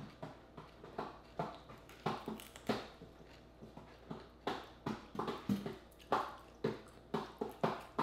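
Close-miked mouth sounds of someone eating cooked frog legs: irregular wet chewing and lip smacks, a few a second.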